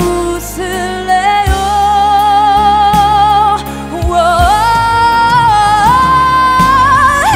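A woman singing a ballad over a backing track, holding long high notes that climb in pitch about halfway through, with a steady low accompaniment and a few drum hits underneath.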